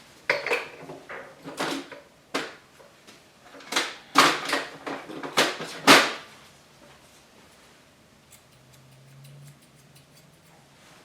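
A run of irregular sharp clicks and knocks over about the first six seconds, then much quieter with a faint low hum.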